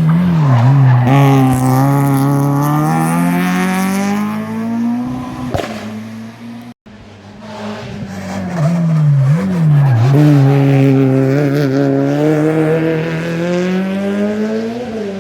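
Two rally cars going hard, one after the other, with a cut between them. Each time the engine note drops sharply, then climbs steadily as the car accelerates through the revs.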